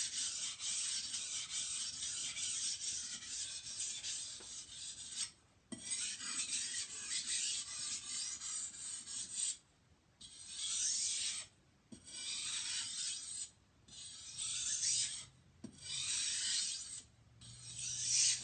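Steel knife edge being stroked across the coarse 400-grit side of a wet waterstone with very light pressure. This is burr removal, cleaning up the freshly raised edge. It starts as a continuous scraping, then after about five seconds breaks into shorter runs of strokes with brief pauses between them.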